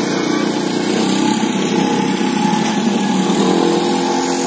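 Small motor scooter engine running steadily as it rides past close by.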